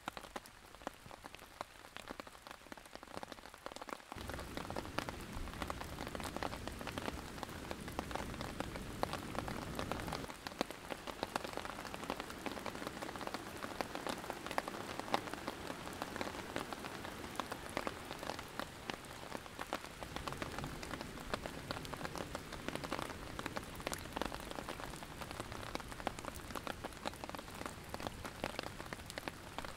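Steady rain falling, with many separate drops pattering and ticking close by. About four seconds in, a fuller rushing of river rapids joins underneath and carries on to the end.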